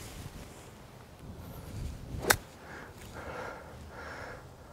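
A single sharp click of a golf wedge striking the ball, a little over two seconds in, over a faint outdoor background.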